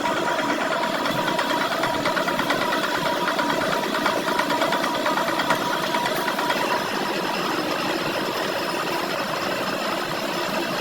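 A workshop machine running steadily with a fast, fine rattle and a steady hum.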